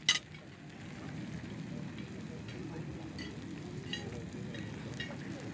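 A sizzler platter hissing steadily on its hot iron plate, with a sharp clink of cutlery on a plate just after the start and a few faint clinks after it.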